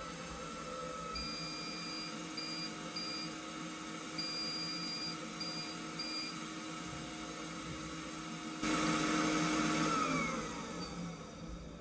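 Hutt DDC55 window-cleaning robot running its vacuum-cleaner-like suction fan steadily on the glass, beeping twice in a series of three short electronic tones. About three-quarters in, a louder rush of noise starts, then the motor winds down with falling pitch.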